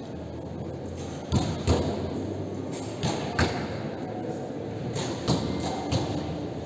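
Bows being shot on a shooting line: about seven sharp thumps of bowstrings releasing and arrows striking the target bosses, mostly in pairs about a third of a second apart, over a low background murmur.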